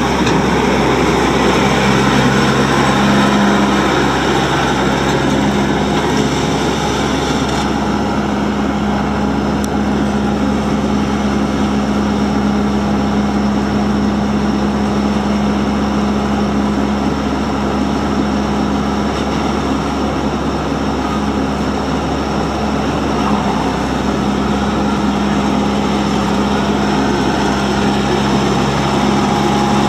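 New Holland Boomer 40 compact tractor's 41 hp Mitsubishi diesel running at a steady speed as the tractor drives around, a constant even engine note.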